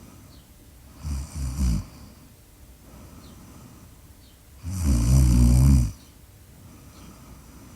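A sleeping person snoring: three short snorts in quick succession about a second in, then one long, loud snore lasting about a second, with soft breathing between.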